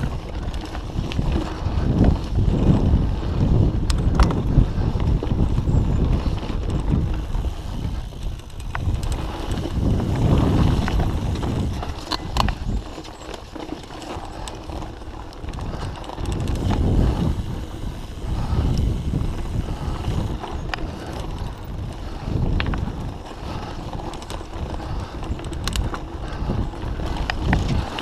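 Mountain bike riding fast down dirt singletrack, picked up by an action camera on the bike: a steady rumble of tyres on dirt and the rattle of the bike, with wind rushing over the microphone, rising and falling in strength. Sharp clicks and knocks come through now and then.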